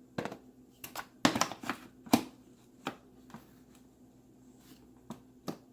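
Hand tools being handled in a plastic tool case: an irregular series of sharp clicks and knocks of hard plastic and metal, the loudest about a second and a half and two seconds in.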